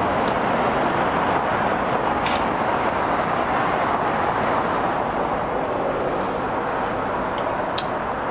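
Steady, even rushing noise with no pitch to it, starting abruptly, with a faint click about two seconds in and a sharp click near the end.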